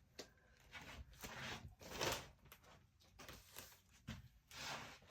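Faint rustling and handling noises, a few short swishes of paper or plastic being moved about, as cash and savings-challenge sheets are handled.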